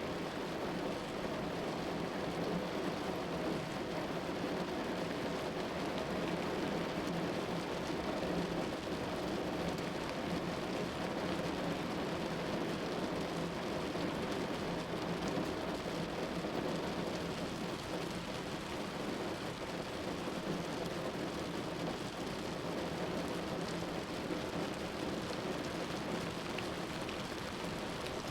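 Steady rain and the even noise of a car driving on a wet road.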